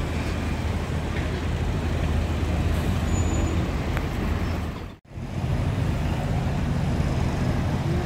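Low, steady rumble of a 1970s Cadillac Eldorado convertible's V8 moving slowly through city traffic, mixed with general street traffic noise. The sound drops out abruptly for a moment about five seconds in, then resumes.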